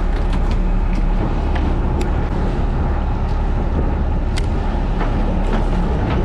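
Fishing boat's engine running, a steady low drone, with sharp clicks scattered through it.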